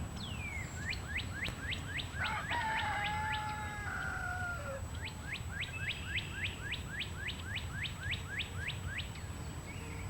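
A bird calling in a rapid series of short falling chirps, about three to four a second, with a longer drawn-out falling call in the middle, over a steady low background rumble.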